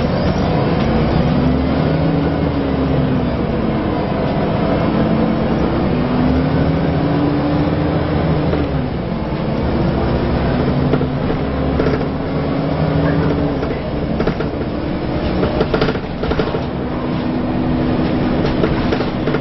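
Interior sound of a Scania L94UA Wright Solar Fusion articulated bus under way: the engine and ZF automatic gearbox pulling, their pitch rising and falling with speed and stepping at gear changes, over road noise. A few sharp knocks sound in the second half.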